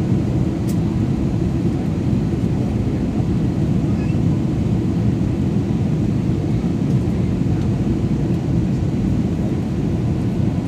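Steady low rumble of jet engine and airflow noise heard inside an airliner cabin.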